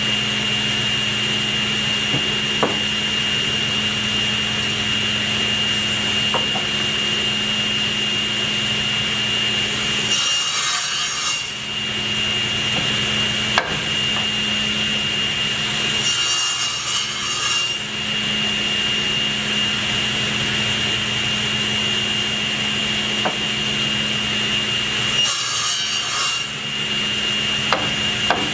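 Table saw running with a steady whine while hardwood leg blanks are pushed across it to cut tenon shoulders. The blade cuts through the wood three times, about ten, sixteen and twenty-five seconds in, each cut bringing a brief hiss.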